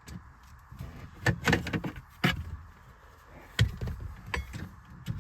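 Plastic steering column cover of a Ram 1500 being popped off its clips and handled: a series of sharp clicks and knocks, the loudest about three and a half seconds in.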